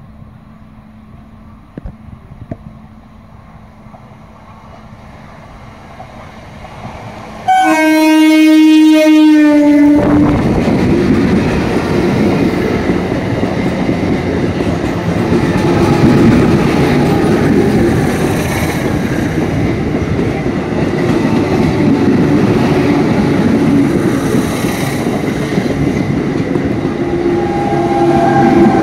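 A three-phase EMU local train sounds one loud steady horn note, lasting about two and a half seconds, which starts suddenly after several quiet seconds. The train then rumbles past close by, and a steady whine comes in near the end.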